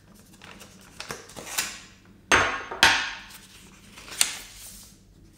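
Paper envelope being slit open with a thin metal letter opener: a run of short tearing strokes, the two loudest about halfway through, then a sharp snap of paper near the end.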